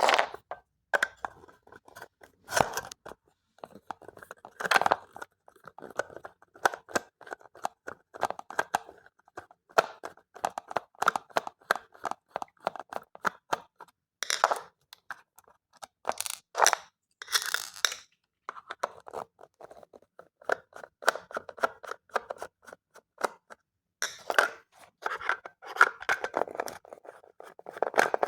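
Small plastic alarm clock being taken apart by hand: long runs of fast small clicks and scrapes, broken by a few louder plastic clacks.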